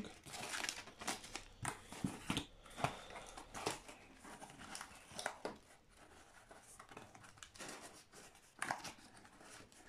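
Cardboard shipping box being folded shut by hand, its flaps scraping and creasing, with crinkling and rustling from the packing paper and foil inside. The rustles are dense in the first half, thin out, and one louder rustle comes shortly before the end.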